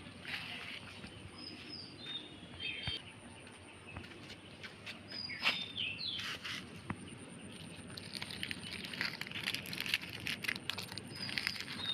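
Small birds chirping in short, high calls. In the last few seconds comes a spell of rustling and crinkling as plastic litter is pulled out of roadside plants.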